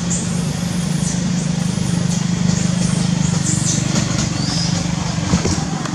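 A steady low engine drone runs throughout, with short high chirps scattered over it.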